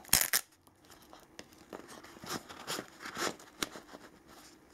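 Nylon flashlight holster with a hook-and-loop flap being handled as a flashlight is fitted into it: faint fabric rustling and rubbing with a few light ticks, and a short rasping burst just after the start.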